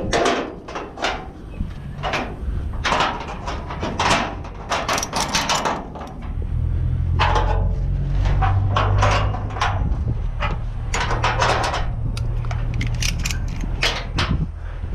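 Repeated metal clanks, clicks and rattles from tie-down gear being handled on a car-carrier trailer's perforated steel deck. A low steady drone joins about six seconds in.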